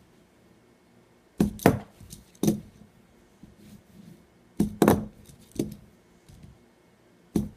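Tech Deck fingerboard clacking on a wooden tabletop during kickflip attempts: the tail snapping down and the board landing on its wheels. Sharp clacks come in short groups of one or two, every second or two.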